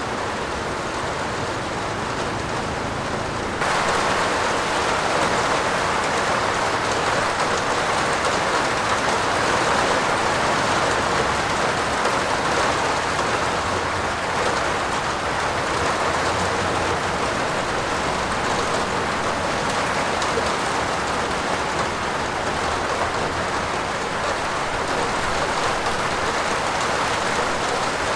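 Heavy rain falling on a roof, a steady hiss that turns abruptly louder and brighter about three and a half seconds in, then holds.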